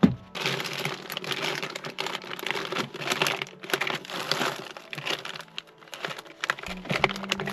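Plastic food wrappers and snack packets crinkling and rustling as a hand rummages through a packed fridge drawer, with one sharp knock at the very start.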